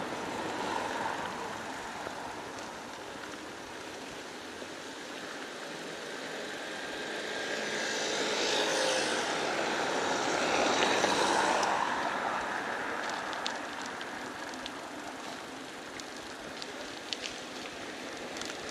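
Street traffic noise, with one vehicle passing close: its sound swells for several seconds in the middle and then fades away. A few faint clicks come near the end.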